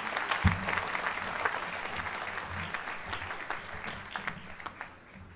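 Audience applauding, a dense patter of many hands clapping that fades steadily and has died away by the end. A single low thump about half a second in.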